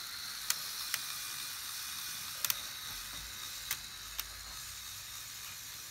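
Sharp plastic clicks, about seven at uneven intervals, as the levers and parts of a Lego Technic 42055 bucket wheel excavator model are pressed and worked by hand.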